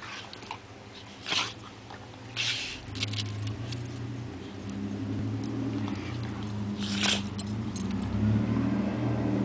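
Two dogs play-wrestling, mouthing at each other: a few sharp breathy huffs over a low rumbling that grows louder from about three seconds in.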